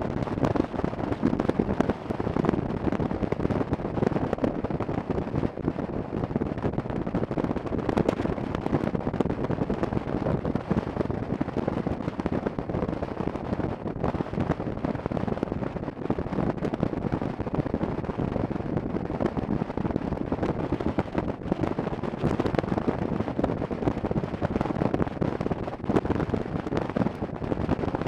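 Wind buffeting the microphone on a moving motorcycle, mixed with the ride's road noise: a dense, steady rush full of fine crackling that never lets up.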